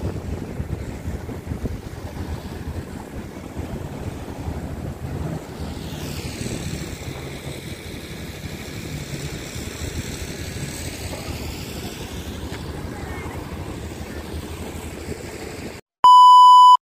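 Wind buffeting the microphone over surf washing in, a steady low rushing that swells and fades midway. Near the end a loud, steady test-tone beep sounds for under a second with the TV colour-bars test card.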